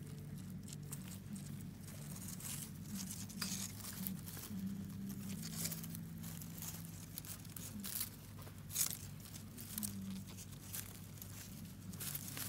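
Dry eucalyptus-type leaf litter crackling and rustling in irregular bursts as a newborn echidna puggle crawls and pushes through it beside its mother.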